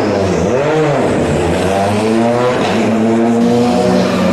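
Rally car engine revving hard: the revs rise and fall twice in the first second, then climb in steps as it accelerates through the gears.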